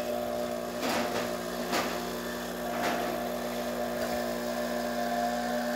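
Rancilio Epoca espresso machine's pump running with a steady hum as a shot of espresso is pulled, starting the moment the brew is switched on, with a few faint ticks.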